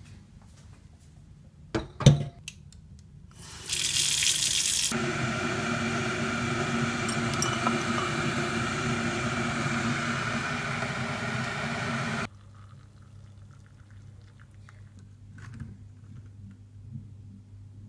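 A sharp clack, then hot water poured from an electric kettle into a mug: a short hiss as the stream starts, then a steady ringing pour for about seven seconds that stops abruptly. Faint handling knocks follow.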